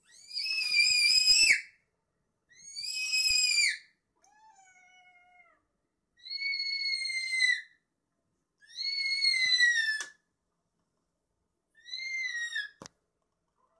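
A cat meowing: six high-pitched calls, each about a second long and falling in pitch at the end, with short gaps between them. The fourth call is fainter and lower than the rest.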